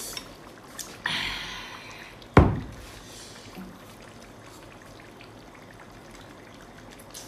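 Spicy chili sauce dripping and splashing as a lobster tail is lifted out of a bowl of it, with a single sharp thump about two and a half seconds in.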